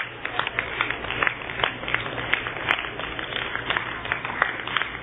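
Spectators clapping in a large hall: steady, uneven hand claps, several a second, over a crowd murmur.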